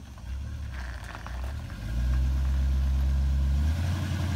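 Engine idling steadily with a low rumble, louder from about two seconds in.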